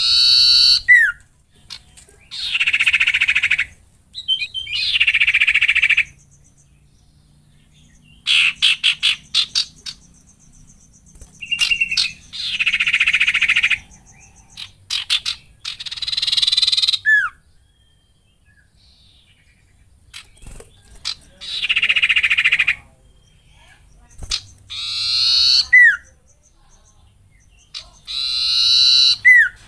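Caged songbird singing in full form: repeated bursts of dense, harsh-edged song about one to two seconds long, separated by short pauses. Several phrases end in a brief falling whistle.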